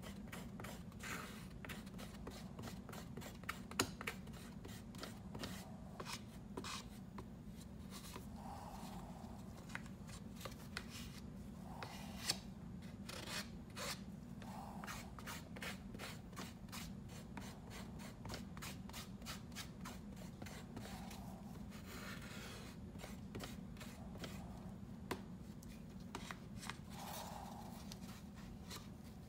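A spatula scraping and stirring two-part Hysol 9460 epoxy paste on a paper plate: irregular scrapes, taps and small clicks, over a steady low hum.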